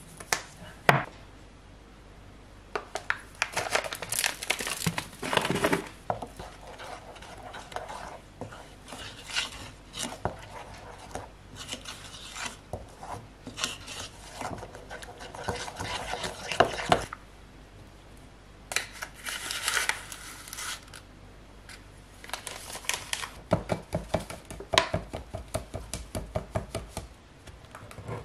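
Wooden spoon stirring thick banana bread batter in a ceramic bowl: irregular scrapes and knocks of the spoon against the bowl. Paper crinkles near the end as flour is poured from a paper bag.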